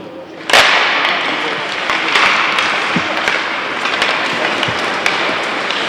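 Ice hockey rink noise: a sudden loud rush of scraping noise about half a second in, from skates on the ice, with many sharp clicks of sticks and puck running through it.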